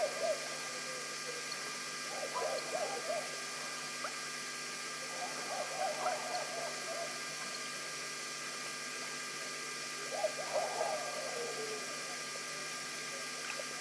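Soft, low hooting or warbling calls from an animal, in three short bouts a few seconds apart, over a steady hiss and electrical hum.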